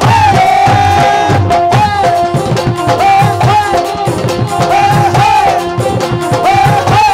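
Instrumental interlude of live Punjabi folk-pop music: a lead melody line with pitch bends over fast, dense drum strokes, louder from the first moment.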